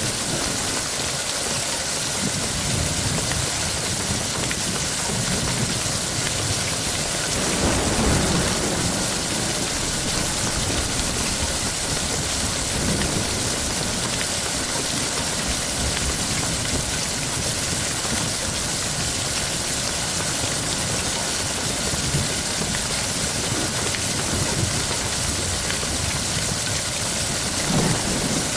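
Steady heavy rain. A low rumble of thunder swells about eight seconds in and again near the end.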